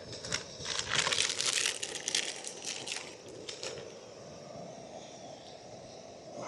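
Plastic food packaging crinkling and rustling as it is handled, for about three seconds.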